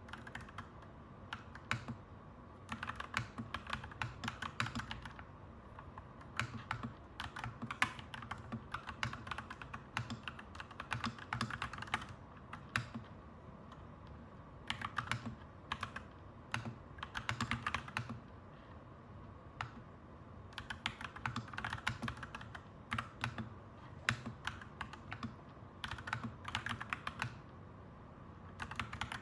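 Clacky mechanical keyboard being typed on in bursts of rapid keystrokes, with short pauses between them, over a steady low background hum.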